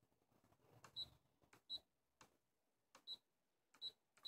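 Brother ScanNCut CM350 touchscreen giving a short high key-press beep for each letter tapped on its on-screen keyboard with a stylus: four beeps about a second apart, each with a faint tap.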